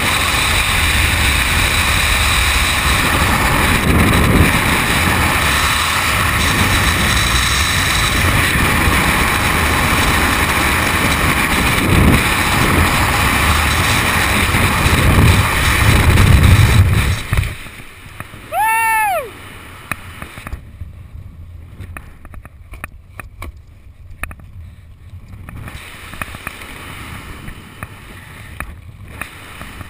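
Loud freefall wind rushing over a helmet camera's microphone, which cuts off suddenly about 17 seconds in as the parachute opens. After that comes quieter, fluttering canopy-flight wind, with one brief high whoop a second or so after the drop.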